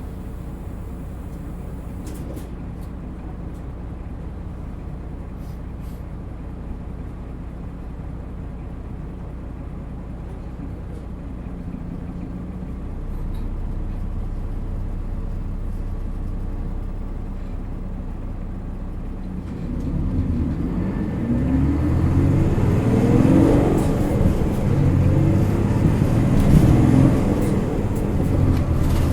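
Diesel engine of an Isuzu Erga Mio (PA-LR234J1) medium-duty bus running steadily at low revs. About two-thirds of the way in it gets much louder and its note climbs as the bus accelerates hard, with a short drop in pitch near the end like a gear change.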